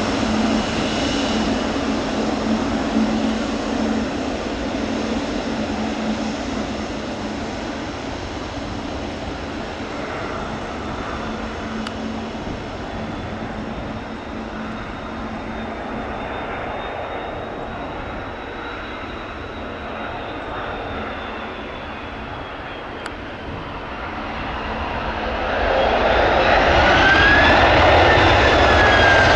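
Jet engines of a Boeing 777F airliner, a steady drone with a low hum that slowly fades, then grows louder again near the end as a whine rises and falls in pitch.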